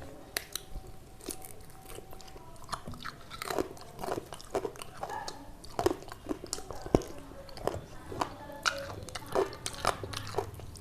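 A person chewing and biting food close to the microphone, with irregular crunchy bites and wet chewing.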